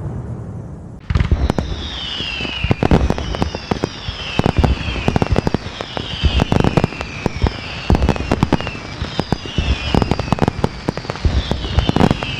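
Fireworks going off: about a second in, a dense run of sharp bangs and crackles starts suddenly, with whistles falling in pitch every second or so.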